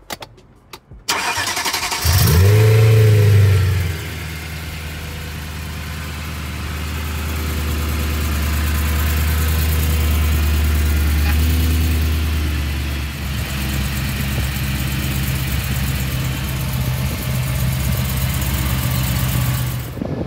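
BMW E92 M3's V8 engine starting: it catches about two seconds in and flares to a loud brief rev, then settles into a steady idle.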